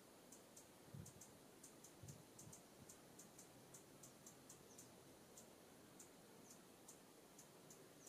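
Faint, high chip notes from small songbirds, irregular, two or three a second. Soft low thumps come about one and two seconds in.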